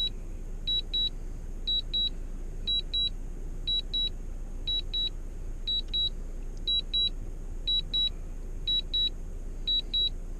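Drone remote controller beeping in pairs, two short high beeps repeated about once a second, the alert it sounds while the drone is automatically landing. A steady low hum runs underneath.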